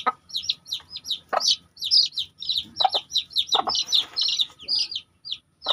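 Day-old chicks peeping rapidly: high, short, falling peeps, several a second, almost without a break, with a few short lower sounds mixed in.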